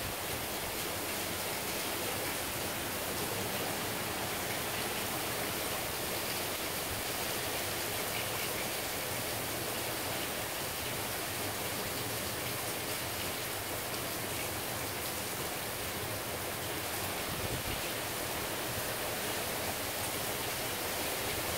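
Hurricane rain and wind: a steady, dense hiss of heavy rain, blown by gusting wind.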